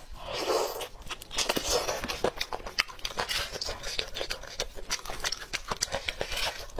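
Close-miked eating of roasted meat: biting, tearing and chewing, heard as a dense run of short wet clicks and smacks.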